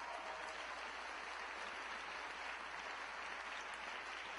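Audience of several hundred applauding steadily.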